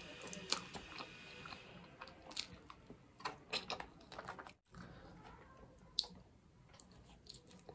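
A person chewing mouthfuls of fries in cheese sauce close to the microphone, with soft, irregular mouth clicks.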